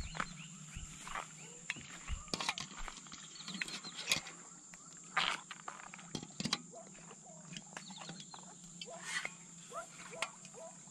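Jungle ambience: insects droning steadily at a high pitch, with many short, quick chirping calls and a few sharp clicks and knocks scattered through.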